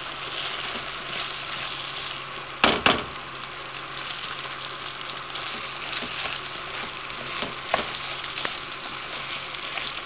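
Rice and toasted vermicelli sizzling in olive oil in a frying pan as they are stirred with a wooden spoon: a steady frying hiss while the rice is toasted until glassy, before the water goes in. About three seconds in come two sharp knocks close together, with a few lighter ticks later.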